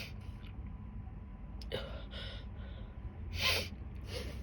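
A woman sniffing and breathing sharply through the nose as the sneezing powder tickles it, with short breathy bursts about two seconds in and a louder, sharper one about three and a half seconds in, but no full sneeze.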